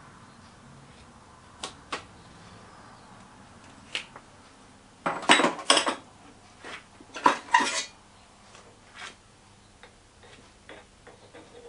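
Metal clanking and clattering as steel casting tools and the crucible are handled and set down: a few sharp clicks, then two loud bursts of clatter about five and seven seconds in, with lighter taps after.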